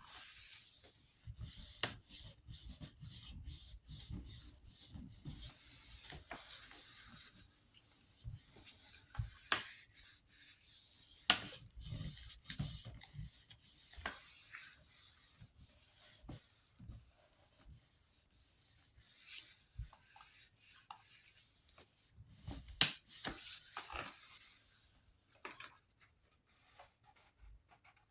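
Hands rubbing and handling a sheet of print paper on a gel printing plate: irregular rustling and rubbing with scattered light taps, dying away near the end.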